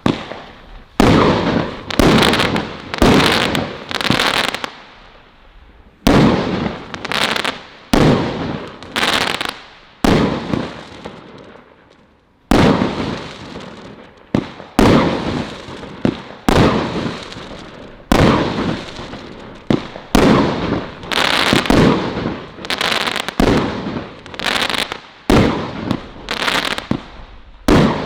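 Category 4 display firework firing colour crackle shots one after another, about one a second, each a sudden bang trailing off into crackling. There is a short lull about eleven seconds in before the shots resume.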